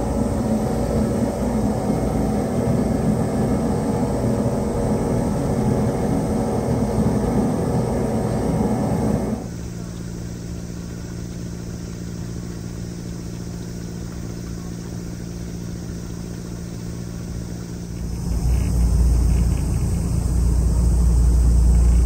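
Sightseeing water bus engine running: a loud steady drone of many even tones, which gives way to a quieter steady low hum about nine seconds in. From about eighteen seconds in there is a deep rumble as the boat gets under way.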